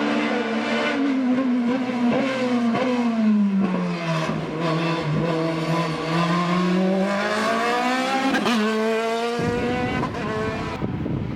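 Hillclimb race car engine at high revs, its pitch sinking for a few seconds and then climbing again, broken by a sharp gear change about eight and a half seconds in, with short cracks from the shifts and exhaust along the way. Near the end the engine tone gives way to a rougher noise.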